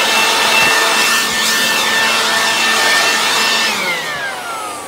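Homelite corded electric leaf blower running at full speed with a steady high whine and a rush of air. Near the end the whine falls in pitch and fades as the motor winds down, its power cut when the extension cord pulls out.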